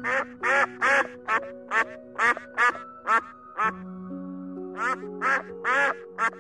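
Ducks quacking repeatedly: a quick run of about eight quacks, a pause of about a second and a half, then another run of quacks, over soft background music.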